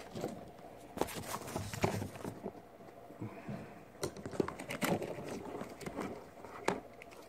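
Irregular clicks, knocks and light rustling of hands handling the recording phone and the record player's wiring as the camera is picked up and set down again.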